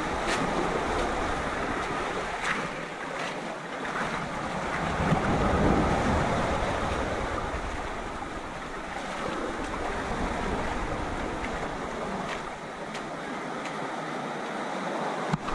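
Small sea waves washing up over a pebble beach and draining back, one surge swelling louder about five seconds in.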